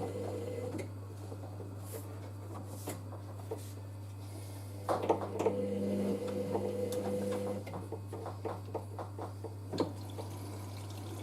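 Hoover AAA160 Whisper 1600 washing machine on a gentle wash action: water and laundry sloshing in the drum, with a steady low hum. The drum motor whines as it turns the drum for about two and a half seconds near the middle.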